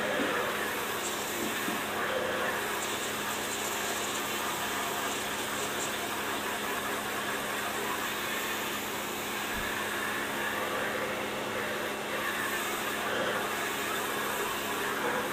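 Pressure washer running: a steady motor hum under the hiss of water spraying onto a car.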